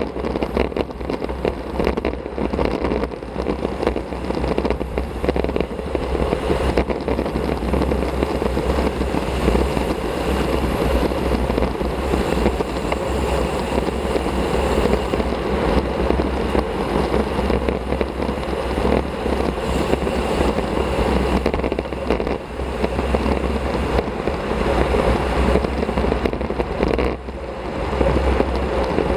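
Wind rushing over an action camera's microphone on a road bike riding at speed, mixed with tyre and road noise. Steady throughout, with a couple of brief dips.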